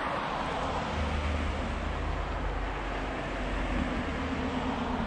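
Road traffic passing on a nearby street: a steady rushing hiss over a low rumble.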